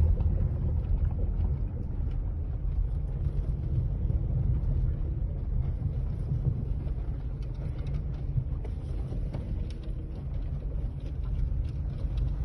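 Second-generation Ford Focus on the move: a steady low road rumble with a few faint knocks from the suspension, the knocking that points to a worn suspension part.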